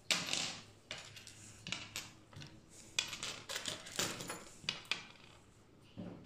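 Small copper clevises and other metal kit fittings being picked up and set down on a wooden tabletop: a dozen or so irregular light metallic clicks and clinks.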